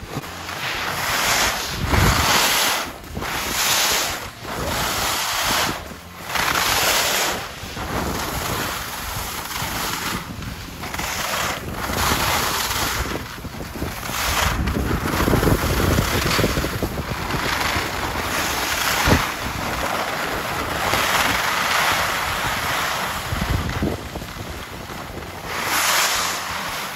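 Wind buffeting the microphone: a loud rushing noise that surges and drops every second or two.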